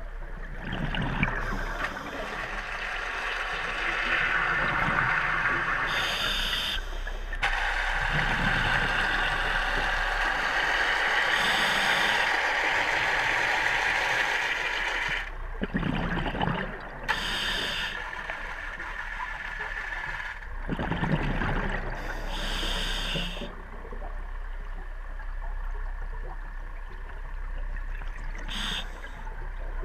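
Scuba diver breathing through a regulator underwater: long stretches of steady hiss broken by several short bursts of bubbling.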